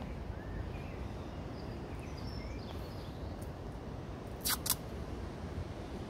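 Outdoor ambience: a steady low wind rumble on the microphone, with faint birdsong chirps in the first half and two sharp clicks close together about four and a half seconds in.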